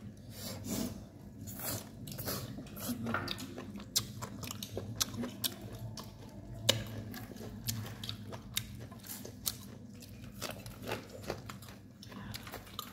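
People chewing boiled pig's head meat close to the microphone, with irregular sharp clicks throughout.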